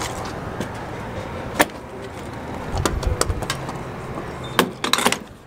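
Clicks and knocks from handling at a pickup's open fuel filler at a gas pump, over a low steady hum. There is a sharp knock about a second and a half in and a quick cluster of clicks near the end.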